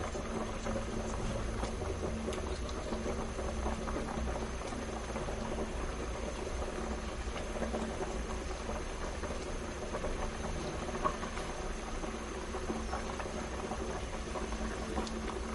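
Dark-stock velouté sauce simmering in a pan around pieces of beef, with a steady bubbling.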